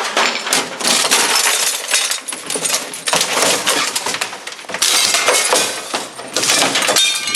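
Glass breaking and crunching, with shards clinking and rattling, as an aluminum picture frame is snapped and pried apart. It starts suddenly and goes on as a dense, crackling clatter with a few short lulls.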